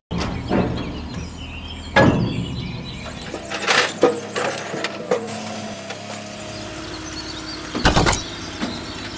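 Toy remote-control excavator's small electric motors whirring as the boom and arm move, with sharp knocks and clatters of miniature bricks about two seconds in, around four seconds in and near the end.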